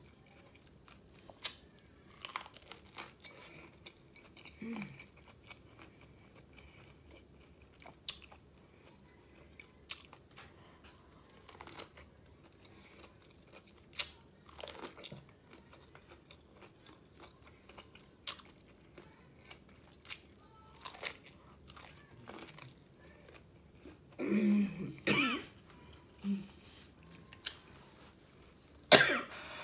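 Close-miked biting and chewing of seasoned corn on the cob, sparse crunches and wet mouth clicks. Near the end a few louder coughs break in.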